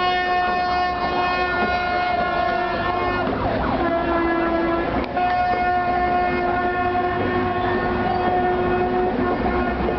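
Loud horn blowing in long held notes: one steady note for about three seconds, a lower note for about a second near the middle, then the first note again for most of the rest, over street noise.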